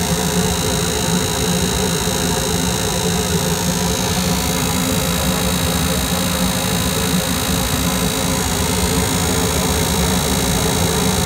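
Goodman GPG packaged gas/electric rooftop-style unit running steadily: an even mechanical hum with a faint high whine above it.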